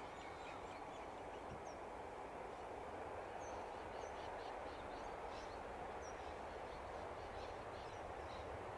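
Distant Countrylink XPT diesel express train running past, a steady low rumble that grows slightly louder near the end. Birds chirp faintly over it.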